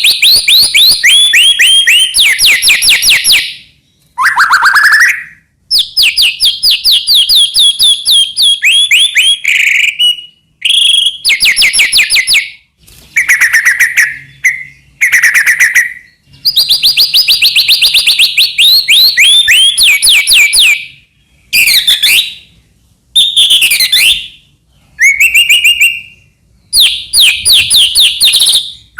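White-rumped shama (murai batu) singing loudly and continuously: phrases of fast repeated sliding notes and whistles, broken every second or two by short pauses.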